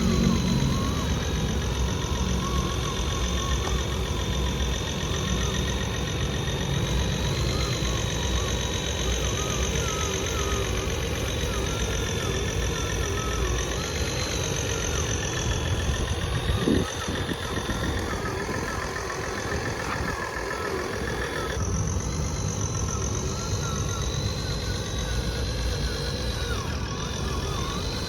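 Radio-controlled excavator and dump truck models running: a steady engine-like rumble under a high motor whine that rises and falls in pitch, with a single short knock partway through.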